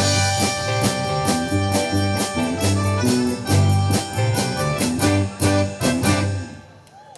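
Live band playing the closing instrumental phrase of a rhythm-and-blues song, with drum hits over a steady bass line and held chords. The band stops together about six and a half seconds in, and the last chord rings out.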